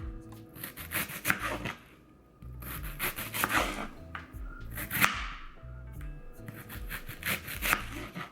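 Kitchen knife slicing a red onion into thin strips on a cutting board: a run of quick cuts and scraping strokes with a short pause about two seconds in. Soft background music plays underneath.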